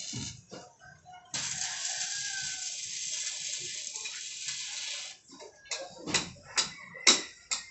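Electric arc welding: a steady crackling hiss that starts abruptly about a second and a half in and cuts off about four seconds later, followed by a run of sharp taps.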